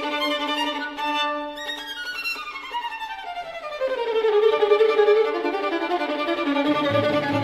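Classical background music led by a violin: sustained notes, a long downward-sliding run, and lower strings coming in near the end.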